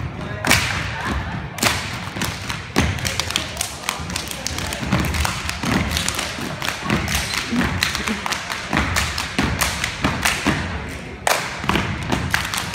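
Step team stepping in unison: rapid, rhythmic stomps and claps on a wooden gym floor, echoing in the large hall.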